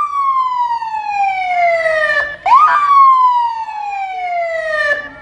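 Fire engine siren sounding loudly in two long falling sweeps. It glides down in pitch, jumps quickly back up about halfway through, falls again, and cuts off near the end.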